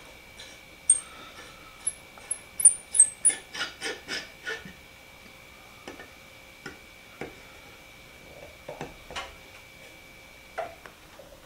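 Steel screwdriver blade twisting and slipping in the slot of a rust-seized screw in a metal end plate: a quick run of sharp clicks and short high metal squeaks over the first few seconds, then scattered single clicks. The screw is stuck fast and will not turn without penetrating oil.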